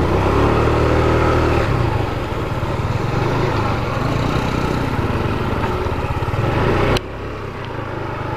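Motorcycle engine running under way, a steady hum with a broad hiss over it. About seven seconds in the hiss cuts out suddenly and the sound drops in level.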